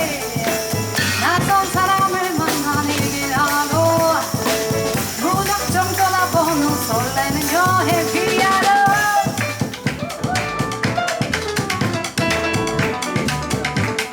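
Live jazz band of voice, piano, double bass and drum kit playing a song: a sung melody over the band for about the first nine seconds, then the instruments carry on alone with busier drumming.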